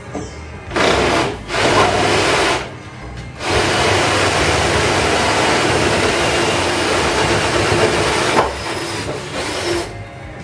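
Reciprocating saw cutting through the trailer's sheet-aluminium skin and plywood wall: two short cuts of about a second each, then one long steady cut of about five seconds, then lighter, broken cutting near the end.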